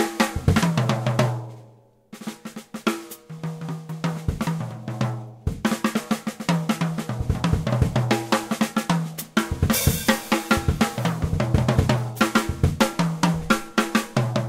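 Contemporary jazz recording with drum kit and a low bass line. The band drops out almost completely about two seconds in, plays a sparser passage, then the full kit comes back in about five and a half seconds in, with a cymbal crash near ten seconds.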